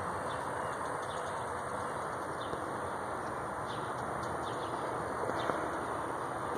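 Steady outdoor hiss with a few faint, short high chirps from a small animal in the trees, spaced irregularly about a second apart.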